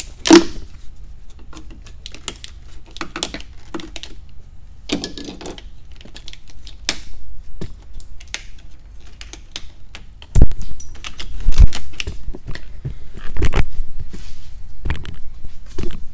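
Irregular sharp plastic clicks and taps as wiring connectors and clips are pried loose on a hybrid battery pack, with several heavier thuds about ten seconds in.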